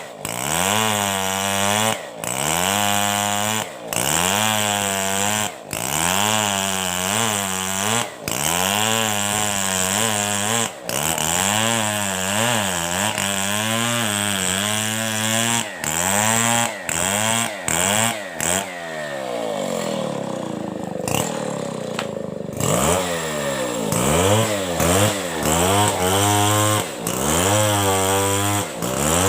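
Two-stroke chainsaw ripping a coconut palm trunk lengthwise, its engine revving up and down under load every second or two, with brief breaks. Partway through it drops to a low idle for a few seconds, then revs up and cuts again.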